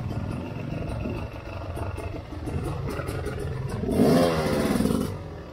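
Beta 300RR two-stroke enduro motorcycle riding a trail, its engine running with knocks and rattles over rough ground. About four seconds in it revs up hard, then eases off near the end.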